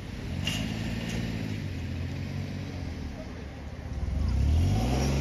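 Car engines passing close by at a level crossing, an SUV towing a caravan among them: a steady engine note, then an engine revving up louder and higher as a car accelerates away near the end. Two sharp clicks sound about half a second and a second in.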